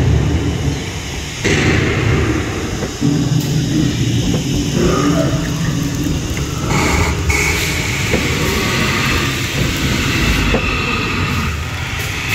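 A loud, continuous low rumble with shifting noise on top, from the dinosaur boat ride's show sound effects mixed with the boat moving through water.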